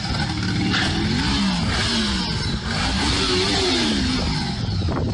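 Engine running under load, its pitch rising and falling several times as it revs up and down, over a dense mechanical clatter and rumble.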